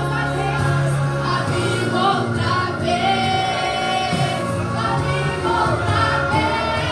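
Gospel worship song performed live: a group of voices singing together over instrumental accompaniment.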